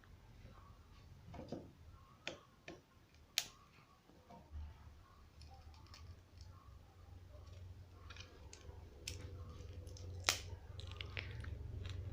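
Faint scattered clicks and taps as a tool pries at the plastic frame and glued touch glass of a Samsung GT-S7262 phone being taken apart, over a low steady hum.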